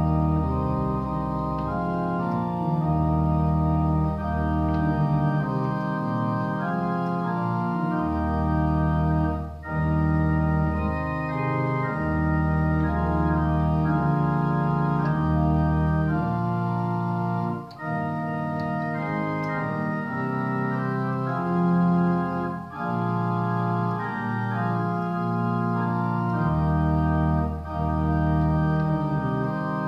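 Church organ playing a hymn in held chords over deep bass notes, with short breaks between phrases.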